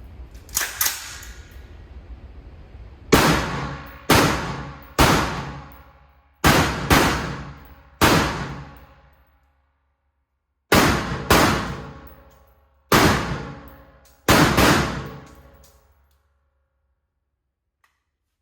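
A series of about a dozen sharp metallic clangs, roughly a second apart in loose groups of one to three, each ringing out for a second or more before the next. They stop a couple of seconds before the end.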